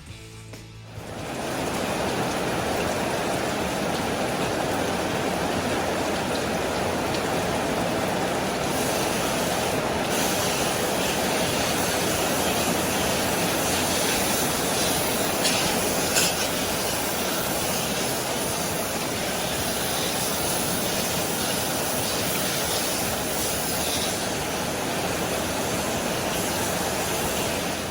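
Steady rushing noise with no rhythm or pitch, starting about a second and a half in and holding an even level throughout.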